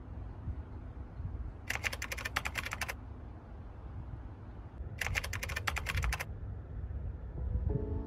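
Two short bursts of rapid clicking, like fast typing, each lasting about a second, over a low steady rumble. Piano music comes in near the end.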